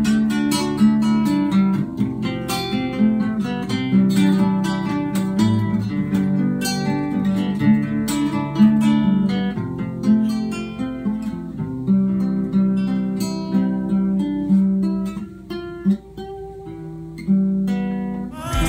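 Two nylon-string classical guitars playing an instrumental duet, a picked melody over strummed chords, with no singing. The playing thins out and goes quieter about fifteen seconds in, then picks up again near the end.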